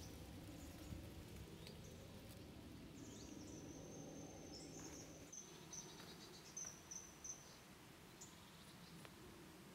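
Faint outdoor ambience with a low, steady rumble. From about three seconds in to about seven, a thin, very high-pitched piping repeats in short, broken notes.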